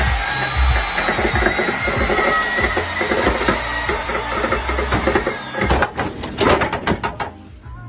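A motor running with a high whine that holds steady, then falls away about five and a half seconds in, followed by a rapid clatter of knocks.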